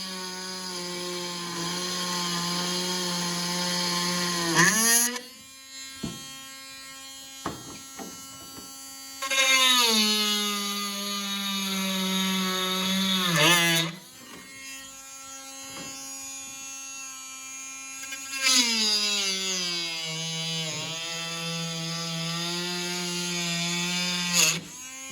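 High-speed rotary tool grinding plastic out of hinge slots in three stretches. Under load its whine drops in pitch and grows louder; it rises again as the tool runs free in between. A few light taps come in the first free-running gap.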